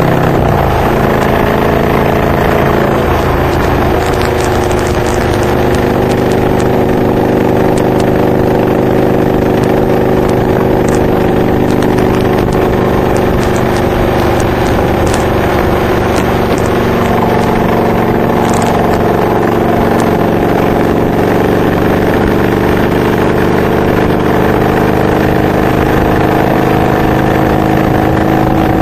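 Honda VTX 1300R's V-twin engine running at road speed through Hard Krome K2 exhaust pipes fitted with Michael's Resonators. The engine note shifts pitch in the first few seconds, then climbs slowly through the later part as the bike gathers speed.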